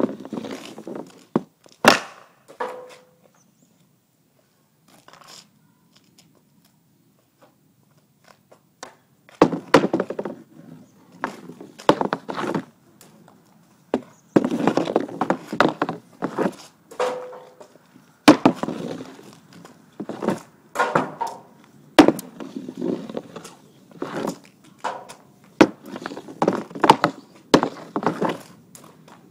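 Hockey pucks being handled and shot off a wooden shooting board with an Easton 65S stick: scattered sharp clacks of stick on puck and pucks hitting wood, with irregular clattering and scraping of pucks on the board. After the first couple of clacks it goes quiet for several seconds, then the clattering comes thick and uneven.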